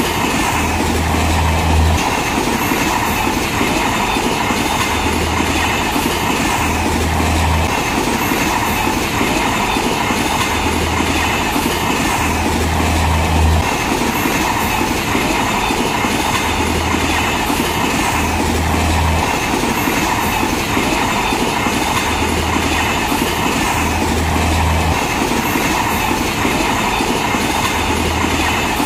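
Indian Railways LHB passenger coaches rolling past close by, wheels clattering on the rails. Under the steady running noise, a low rumble swells and fades about every six seconds.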